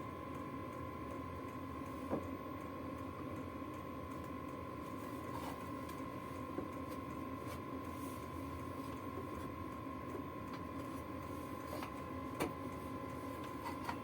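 Steady high-pitched whine over a low background hum, with a couple of faint clicks, one about two seconds in and one near the end.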